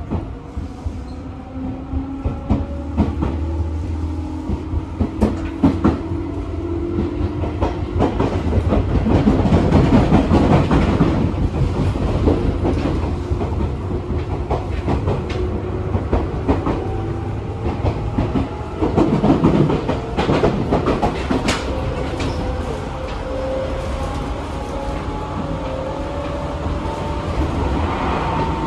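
In-cabin running sound of a Seibu New 101 series electric train: the traction motors whine in several tones that climb in pitch as the train accelerates, over a steady low rumble, with the wheels clicking over rail joints.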